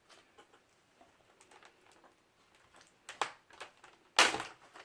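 Light clicks and taps of plastic laptop screen parts being pried apart by hand, with a louder crackling snap a little after four seconds in.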